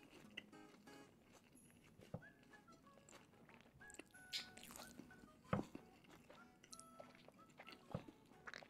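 Close-miked eating mouth sounds: quiet chewing, and wet smacks and clicks as fingers are licked clean of sauce, the loudest click about halfway through. Faint soft background music plays under them.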